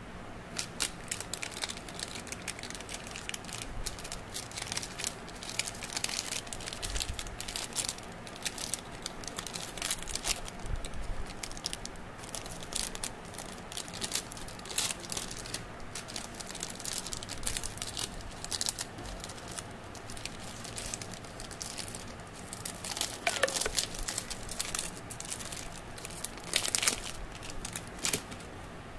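Plastic lollipop wrappers crinkling and crackling as hands fold and crumple them, in irregular clusters of sharp crackles that are loudest near the end.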